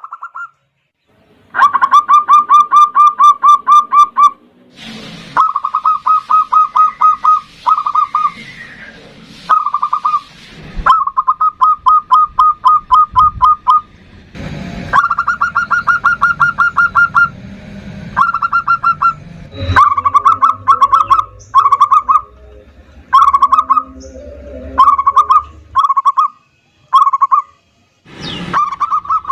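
Zebra dove (perkutut) cooing in loud runs of rapid, stuttering notes, each run lasting a second or two with short pauses between them. The runs grow shorter in the second half, and a few sharp clicks fall in the gaps.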